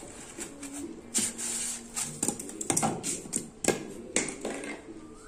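A cat's paws rustling and crinkling a sheet of paper on a microwave oven's top, with a string of light taps and clicks and a short rustle about a second in.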